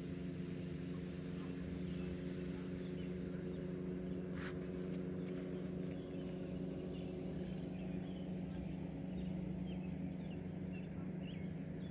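A steady low hum at one constant pitch, with scattered short bird chirps over it.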